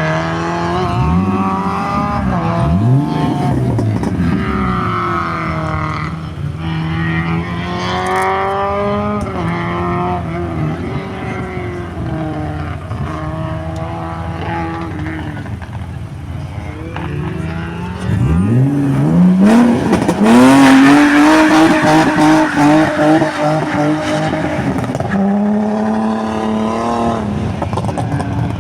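Rally car engine revving at a stage start, its pitch swinging up and down. About 18 seconds in, a car launches hard and accelerates away, the engine climbing in pitch through quick gear changes: the loudest stretch.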